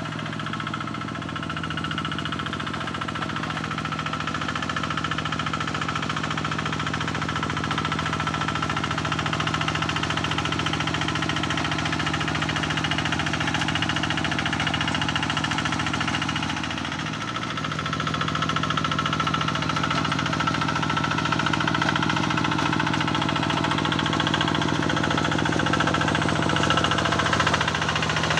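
Single-cylinder diesel engine of a two-wheel hand tractor running steadily under load while it ploughs a flooded rice paddy. It dips briefly about two-thirds of the way through, then picks up again.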